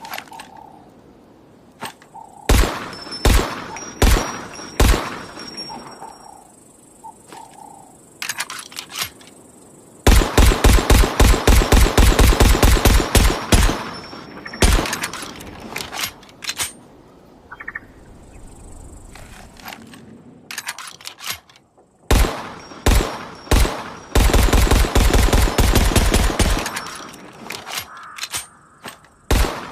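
Gunfire sound effect for an M13 firearm: several single shots, then long rapid fully automatic bursts, about a third of the way in and again near the end, with more single and short-burst shots between.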